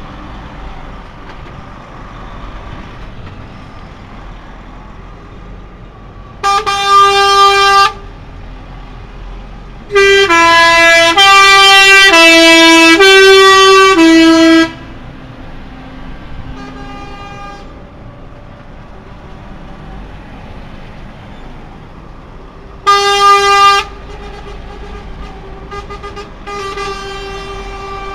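Truck horns honking over the low running of lorry engines: a short blast, then a longer horn alternating between two notes for about four seconds, another short blast, and a quieter held horn tone near the end.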